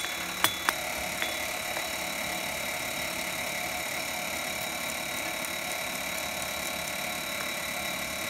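A hammer strikes a hot steel rod on an anvil: three ringing blows in the first second, one faint tap shortly after. Then a steady mechanical drone runs on with no blows.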